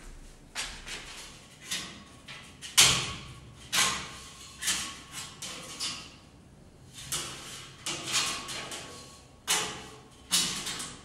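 A series of knocks, clunks and sliding scrapes, about a dozen, the loudest about three seconds in: objects being handled and set in place in a drawer or cabinet.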